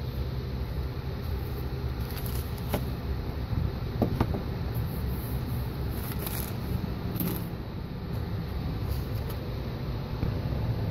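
A few faint, small clicks of metal lock-cylinder parts being handled and fitted together, over a steady low background hum.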